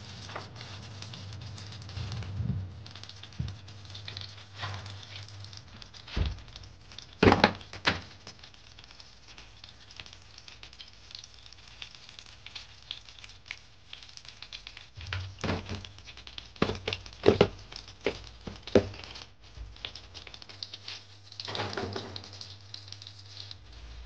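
Laundry being handled at a twin-tub washing machine: clothes and plastic rustling and crinkling, with scattered clicks and several sharp knocks and clunks as washing and powdered detergent go in.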